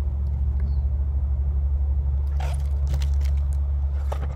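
Pages of a hardcover picture book being turned, with brief paper rustles about two and a half seconds in and near the end, over a steady low rumble.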